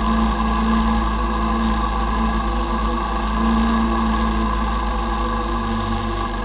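Quad (ATV) engine running steadily under way at an even throttle.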